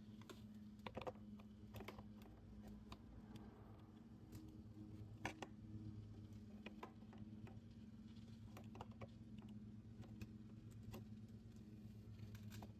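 Faint, scattered small clicks and taps of hands working a new rubber fuel line and grommet into a Stihl 021 chainsaw's housing, with one sharper click about five seconds in, over a low steady hum.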